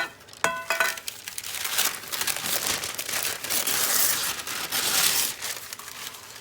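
A sheet of baking paper being handled and crinkled for about four seconds, following a click and two short ringing clinks near the start.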